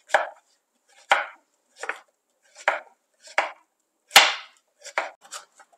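Kitchen knife chopping zucchini into small cubes on a wooden cutting board: single chops a little under a second apart, then quicker, lighter strokes near the end.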